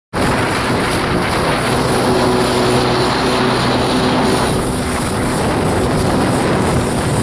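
1993 Kawasaki 650SX jet ski's two-stroke twin engine running at a steady pitch, under a loud rush of wind and water noise.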